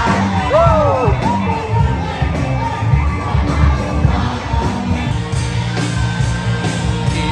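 Loud amplified pop-rock music with a singer and a heavy bass line, with the crowd's voices mixed in.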